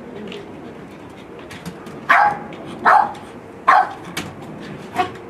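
A small terrier barking sharply four times at a wheelie bin, about one bark a second starting two seconds in, the last one weaker: a drug-detection dog alerting to the bin where drugs are hidden.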